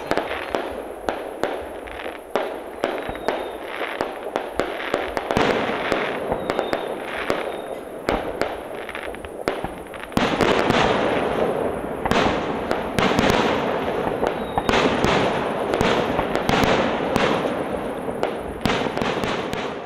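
Fireworks going off: a rapid, irregular string of bangs and crackles that grows denser and louder from about halfway through.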